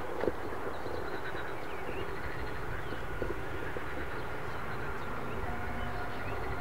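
Steady distant jet aircraft noise: an even rumble and hiss with a faint thin whine.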